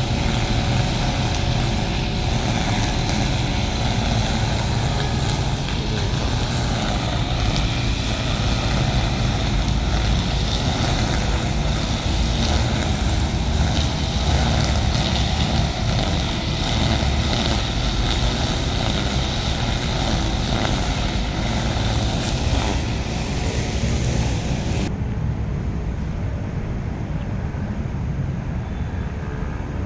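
Chainsaw engine running steadily at high speed. About 25 s in the sound changes abruptly: the high hiss drops away and a lower, quieter running carries on.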